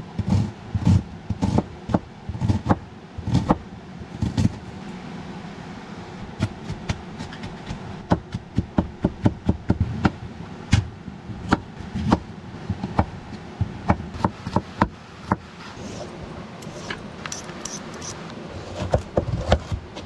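Kitchen knife chopping vegetables, an onion and then a zucchini, on a plastic cutting board: a long run of knocks, about two a second at first, then quicker and sharper in the middle stretch.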